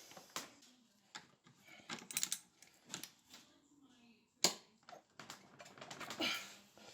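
Irregular light clicks and taps of tools and small parts being handled on a workbench, with one sharper knock about four and a half seconds in.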